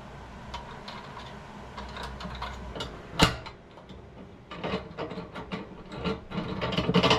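Hand ratchet clicking as bolts on the plow mount hardware are tightened, with one sharp metal knock about three seconds in and quicker, denser clicking over the last couple of seconds.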